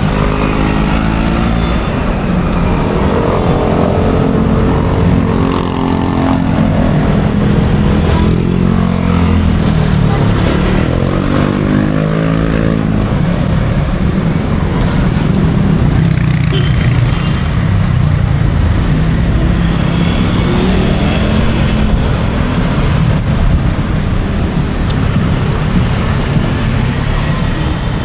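Busy road traffic: cars and motorcycles passing close by, with engine notes climbing in pitch as vehicles accelerate, over a constant low rumble.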